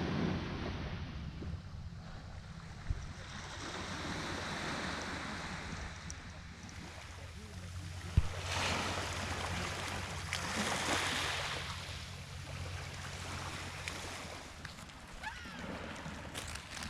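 Black Sea waves washing onto the shore in swelling surges, strongest about halfway through, over a steady low hum, with a single sharp click about eight seconds in.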